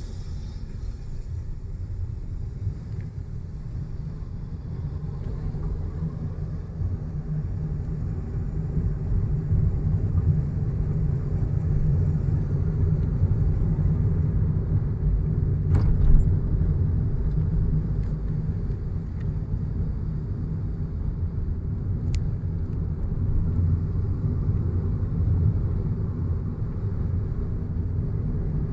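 A car driving along a road, with a steady low rumble of engine and tyre noise that grows louder over the first several seconds. There is a sharp click about halfway through and a fainter one a few seconds later.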